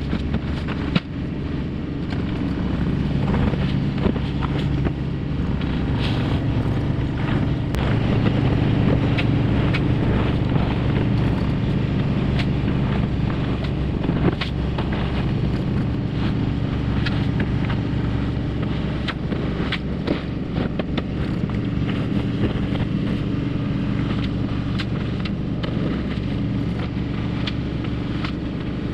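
Takeuchi TB2150 excavator's diesel engine running steadily under working load, with scattered knocks and clanks from the machine at work.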